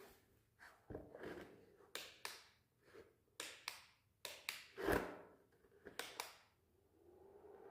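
A series of light, irregular clicks and knocks of objects being handled, the loudest about five seconds in.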